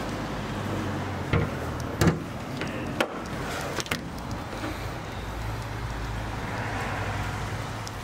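Car engine running steadily at low revs, with four sharp knocks or clunks in the first half, the loudest about two seconds in.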